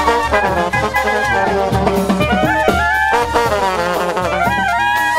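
Brass band music: horns playing a melody over a steady low beat.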